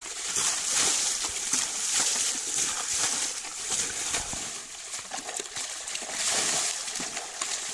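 Pond water scooped up in a plastic tub and thrown over a motorcycle standing in the shallows, splashing and pouring over it in several surges a second or two apart, with sloshing from the water being waded through and scooped.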